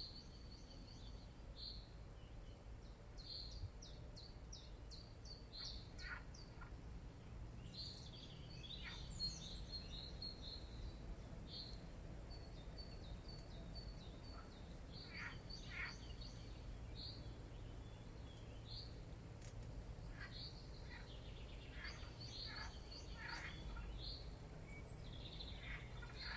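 Wild birds chirping and calling over a steady low background rumble: many short high notes in quick series, with scattered lower, quicker chirps.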